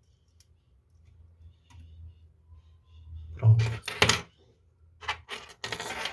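Faint small clicks and handling noise of small brass clock parts being fitted into an alarm clock movement, with a cluster of short scraping, rustling sounds near the end.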